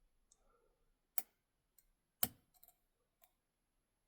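Lock picks working the pins of an ASSA Ruko 500 five-pin cylinder: two sharp metallic clicks about a second apart, the second the loudest, with a few fainter ticks around them.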